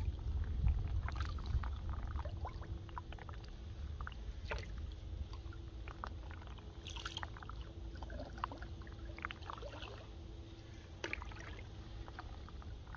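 Canoe paddling on flat water: water dripping and splashing off the paddle with small scattered clicks, over a steady low wind rumble on the microphone.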